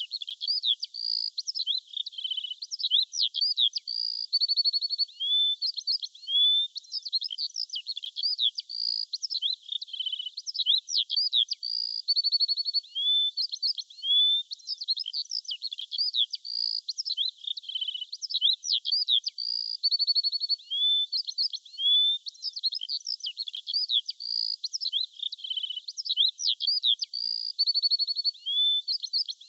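A chorus of songbirds singing: many overlapping high chirps, quick whistled up- and down-sweeps and short rapid trills, one after another without a break. The same run of phrases comes round again about every eight seconds, as in a loop.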